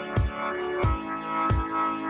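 Background electronic music with a steady beat: held synth chords over a drum hit about every two-thirds of a second.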